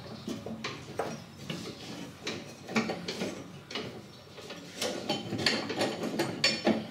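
Irregular clicks, knocks and scrapes as a new cutter V belt is worked by hand around the metal pulleys and belt guides under a Greenfield ride-on mower's deck, getting busier and louder about five seconds in.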